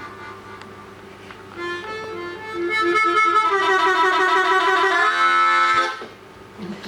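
Harmonica playing the closing bars of a train-imitation piece: a short pulsing run of chords, then a loud held chord, then a run of notes stepping downward, ending about six seconds in.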